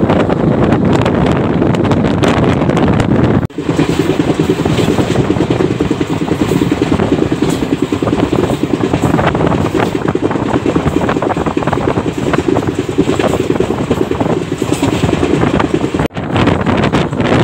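Heavy wind buffeting the microphone over the steady rumble of a moving passenger train, heard from onboard at speed. The noise is dense and rough and dips sharply for a moment twice.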